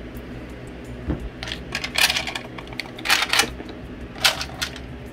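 Loose brass .22 LR cartridges clinking and rattling against a plastic rotary magazine charger as it is handled, in a few irregular bursts of clicks starting about a second in.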